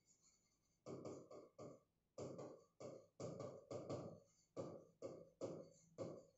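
Faint pen strokes on an interactive smart-board screen: the stylus tapping and scraping across the glass in short, irregular strokes, two or three a second, as a line of handwriting is written.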